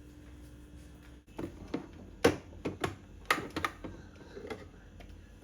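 A string of sharp, irregular taps and clicks of small hard objects, starting about a second in, with the loudest knocks around two and three seconds in.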